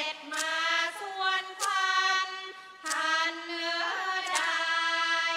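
A woman singing a Thai classical song for a lakhon nok dance drama, in long held notes with sliding ornaments, and a few sharp strokes behind the voice.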